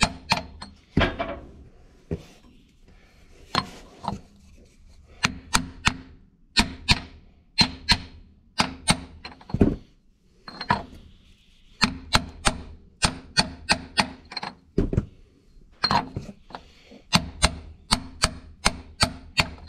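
Hammer striking a large steel socket used as a seal driver, knocking a new PTO seal into the transmission housing. Quick runs of sharp taps, about four a second, come in groups with short pauses between them.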